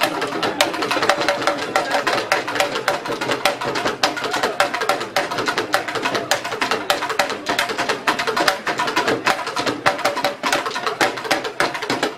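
Yoruba talking drums (dundun) played live in a fast, busy rhythm of sharp strokes, with voices mixed in.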